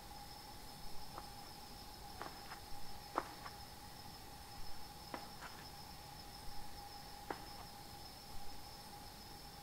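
Faint, eerie horror ambience: a steady high-pitched hum with irregular soft clicks and creaks, roughly one a second.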